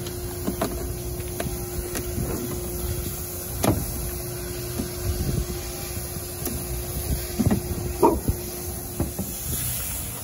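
Scattered clicks and knocks as a red plastic gas can and a black aluminium fuel-can bracket with a rubber strap are handled and fitted, with louder knocks about four and eight seconds in. Under them runs a steady low hum.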